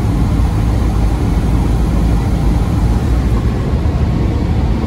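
Steady drone of a single-engine Cessna's piston engine and propeller heard from inside the cabin, with a deep rumble under a constant rush of air noise.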